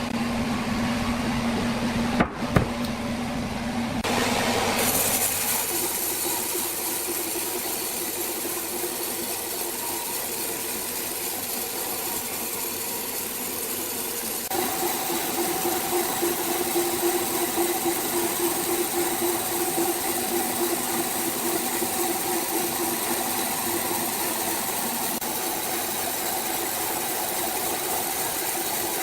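Sawmill machinery running steadily with a motor hum. Its pitch shifts about five seconds in, when a hiss joins it, and again about halfway through. Two sharp knocks come just after two seconds.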